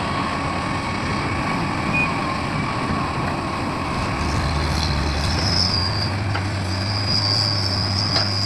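Heavy diesel machinery running steadily, with a deeper engine hum building about halfway through and a high metallic squeal that comes and goes in the second half.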